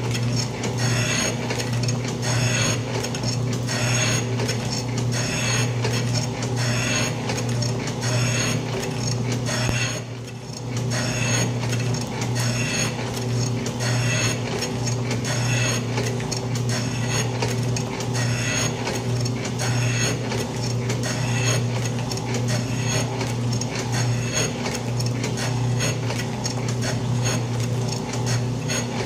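Atlas metal shaper running a cut: a steady motor hum under a regular clatter as the ram strokes back and forth and the feed ratchet clicks the table over each stroke. The sound drops briefly about ten seconds in.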